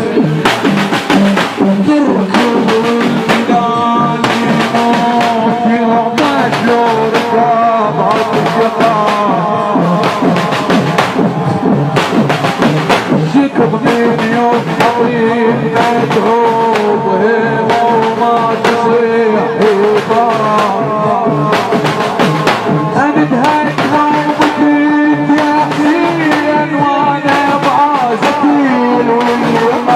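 Loud music with a fast, steady drum beat under a held melody: a Shia Muharram mourning chant (latmiya) with drums.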